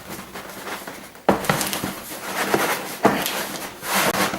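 Handling noise while something stuck is tugged and pried at during an unboxing: a few sharp knocks, then a scraping rub near the end.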